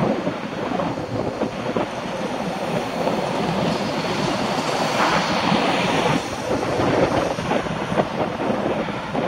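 Wind rushing over a bicycle-mounted camera's microphone while riding, with constant small rattles and knocks as the bike goes over cracked, patched asphalt; the rush swells for about a second around five seconds in.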